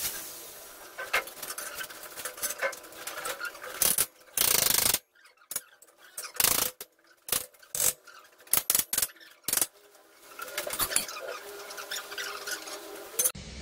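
Scattered metallic clicks, knocks and rubbing from hand work with tools on steel beams, with a short loud burst of hiss about four seconds in that cuts off suddenly.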